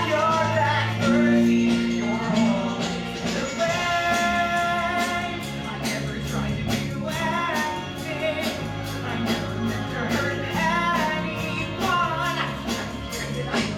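A young male voice singing a rock-style musical-theatre song over band accompaniment with a steady drum beat.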